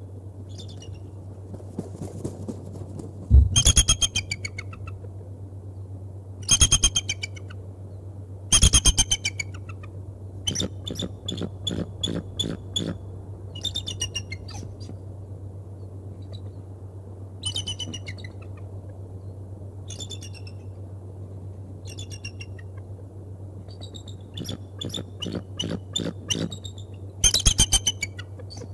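Bald eagle calling in repeated bouts of rapid, high-pitched chittering notes, the loudest bouts a few seconds in, around the middle and near the end.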